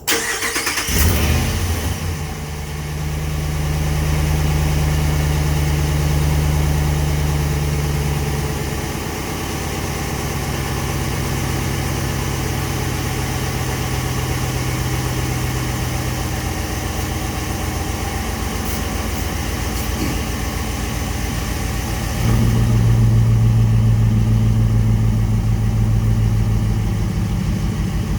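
Ram 1500 pickup engine cranking and catching, then idling fast before settling to a lower idle after several seconds. Near the end the exhaust note turns louder and deeper for about five seconds, then drops back, fitting the newly fitted electric exhaust cutout valve being opened and closed.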